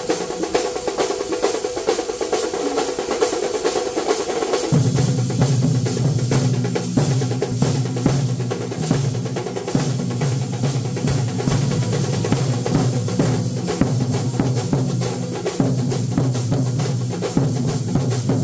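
Two Kerala chenda drum troupes playing together in a kalasam, the fast climactic finale of a melam: dense, rapid drumming throughout, with a deeper, steadier pattern joining about five seconds in.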